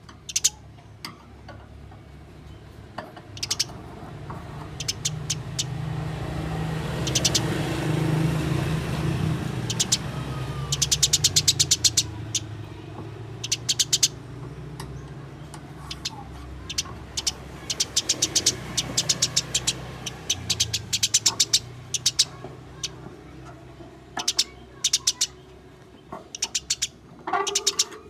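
Eurasian tree sparrows giving their harsh fighting chatter, rapid bursts of short chirps repeated again and again, over a low rumble that swells in the middle and fades again.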